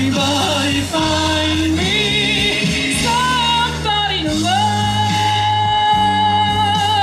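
Pop song played through a stage PA: a singer with a microphone sings over a backing track, ending on one long held note in the second half.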